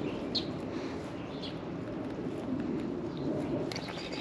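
Steady wash of wind and water around a kayak, with two faint short high chirps about half a second and a second and a half in.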